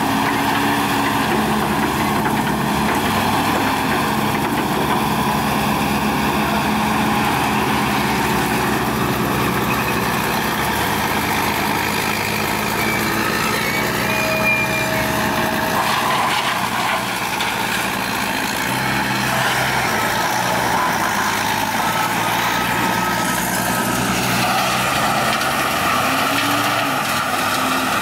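Heavy diesel machinery running steadily: an excavator working with a wood grinder, a low engine note throughout, with brief high-pitched whines now and then.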